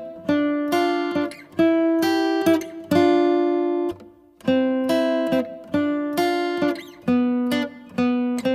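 Background music: an acoustic guitar playing plucked chords in a slow, even pattern.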